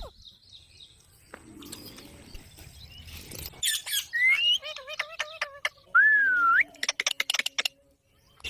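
Pet parrot calling: a run of gliding chirps and whistles starts about halfway through, then a loud rising whistle, then a quick series of sharp clicks near the end.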